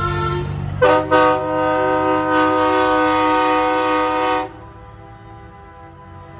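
Semi truck's air horn sounding a multi-tone chord: two short blasts about a second in, then a long blast held for over three seconds that cuts off suddenly. Fainter horn tones carry on after it, over the low rumble of truck engines.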